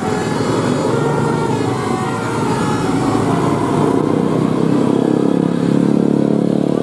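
Road vehicles passing close by, their engines running loudly and steadily.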